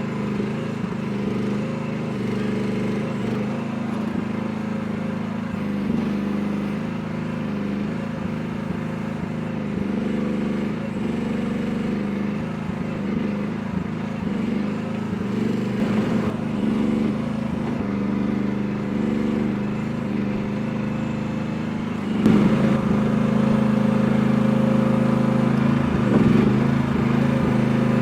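Chinese mini excavator's small engine running steadily while the machine digs, rising to a louder, higher-working pitch near the end.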